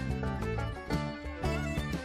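Background music: a lively tune with plucked and bowed string notes and a steady beat.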